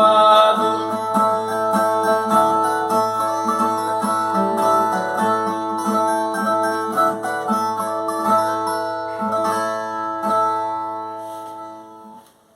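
Brazilian viola playing an instrumental closing passage, strummed in a steady rhythm over ringing strings. It fades away over the last couple of seconds as the piece ends.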